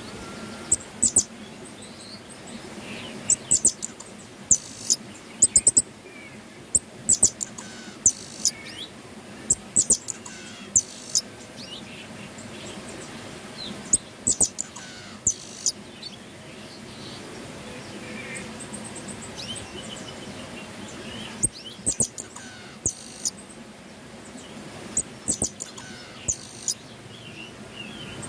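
Pin-tailed parrotfinch singing: repeated clusters of very high, short, sharp clicking notes every few seconds. Fainter chirps of other birds sound in between.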